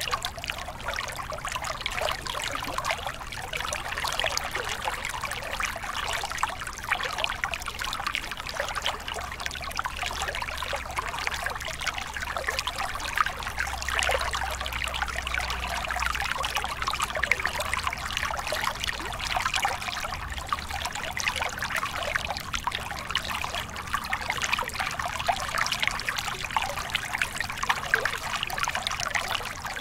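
A small stream splashing down a little cascade over rocks into a pool, a steady, busy trickle with fine splashes.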